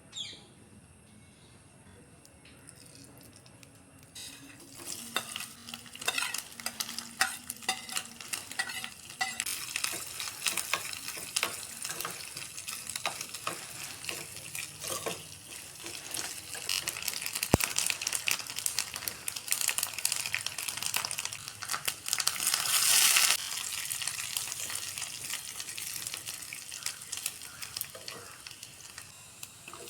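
Food sizzling and crackling in a hot pan while it is stirred, starting about four seconds in. There is a louder rush of sizzling a little after three quarters of the way through.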